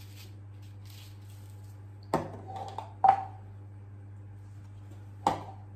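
Kitchenware clinking and being set down on a worktop: three sharp knocks, the second the loudest with a short ring, over a steady low hum.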